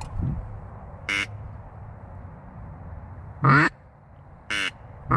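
Duck quacks: four short, loud calls, the strongest about three and a half seconds in and right at the end, each with a falling pitch.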